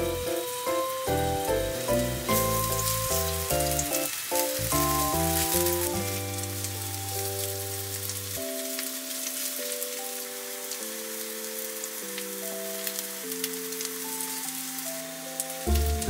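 Small enoki-mushroom and vegetable patties frying in oil in a nonstick pan: a steady sizzle with scattered crackles, busiest in the first half. A light, cheerful background music tune plays over it.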